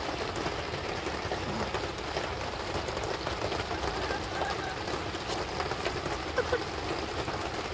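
Heavy rain pouring steadily on a tarp roof over a chicken run, an even hiss.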